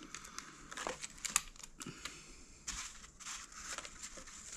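Packaging crinkling and rustling in short bursts, with a few sharp clicks, as a cigar box is unwrapped and opened.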